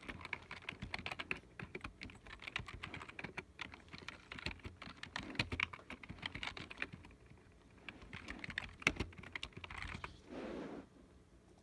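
Typing on a computer keyboard: a fast, irregular run of key clicks that thins out near the end. A brief soft rushing noise follows, about ten seconds in.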